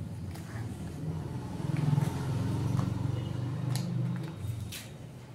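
A low engine hum that swells for a couple of seconds and then fades, with a few short crinkles and clicks of a paper packet being torn open near the end.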